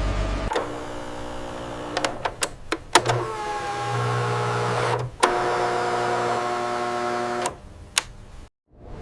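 Electric motor machinery running with a steady, pitched hum that changes note a few times, broken by several sharp clicks, then cutting out abruptly near the end.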